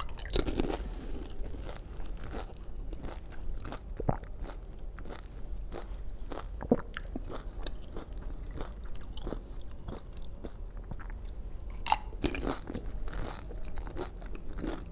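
Crisp pani puri shells crunching between the teeth, then being chewed, with irregular sharp cracks, a few louder than the rest.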